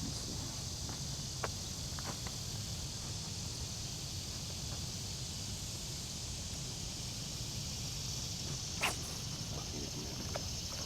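Steady high-pitched insect chorus, with a few light clicks; the loudest click comes about nine seconds in.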